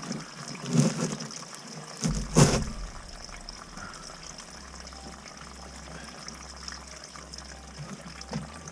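Flushed toilet water running through a cast-iron sewer pipe, flowing freely: a sign the sewer is not blocked. A sharp knock comes about two and a half seconds in.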